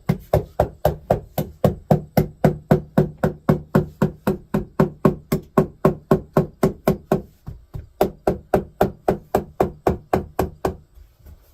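Rapid, even hammer blows on wood, about four a second, each with a short ringing knock. The hammering pauses briefly about eight seconds in and stops shortly before the end.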